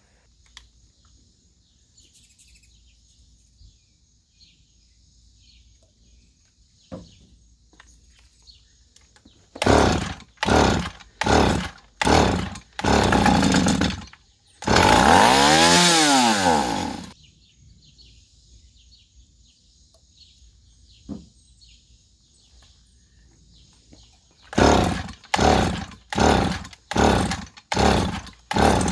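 Stihl 028 two-stroke chainsaw engine running in short bursts, about half a second each, six or so in a row. Then comes one rev of about two seconds that rises and falls, and after a pause another run of short bursts. The low and high carburetor screws have just been set.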